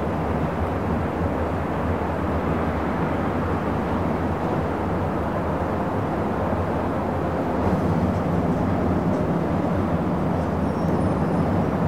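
Busy city traffic ambience: a steady low rumble of traffic, with a few faint high squeaks near the end.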